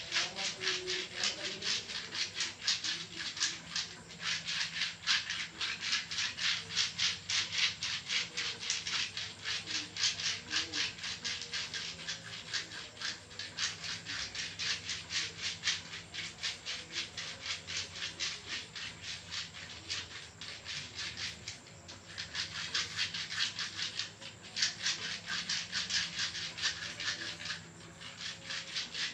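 Massage strokes rubbing rapidly and rhythmically over skin, several strokes a second, with a few brief pauses.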